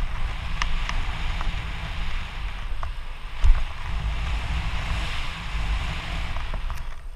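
Mountain bike descending a dirt trail at speed: wind rushing over the microphone and tyres rumbling on the dirt. There are a few light clicks and one louder knock about halfway through.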